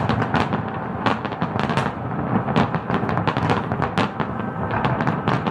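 Aerial fireworks display: a dense barrage of shell bursts, many bangs and crackles overlapping several times a second without a break.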